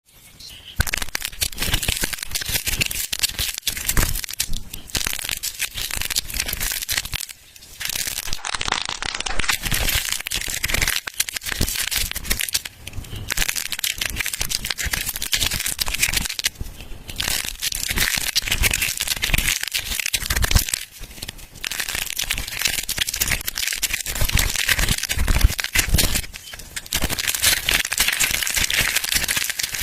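Dry, crumbly soap being crushed: a dense run of crunching and crackling, made of many small snaps, broken by a few short pauses.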